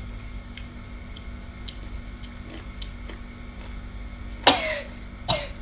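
Chewing of crunchy raw green fruit, with faint crisp clicks from the bites. Near the end come two loud, short, hissy sounds about a second apart.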